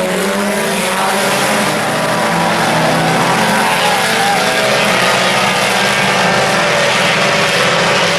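Four-cylinder IMCA Sport Compact race cars running at speed around the track, several engines overlapping in a steady, loud drone whose pitches drift up and down as the cars accelerate and lift.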